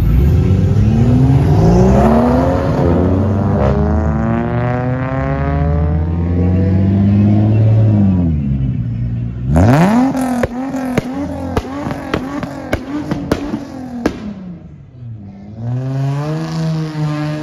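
Car engines revving hard as cars accelerate away at a street meet. The first engine climbs in pitch through about eight seconds, with a brief break partway, then drops. A second rev is held high with a rapid run of sharp crackles, and a third engine revs up near the end.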